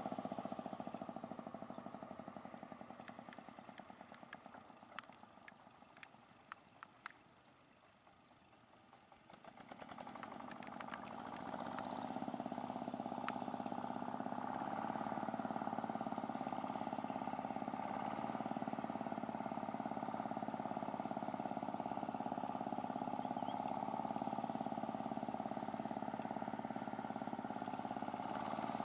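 Chinese D30 single-cylinder diesel engine on a water-channel digging machine running under way through a muddy field. Its sound fades down over the first several seconds, then grows louder from about ten seconds in and holds steady.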